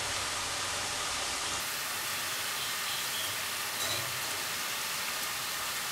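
Garlic murukku (rice-flour dough spirals) deep-frying in hot oil: a steady sizzle of the oil bubbling around the pieces, which are still cooking.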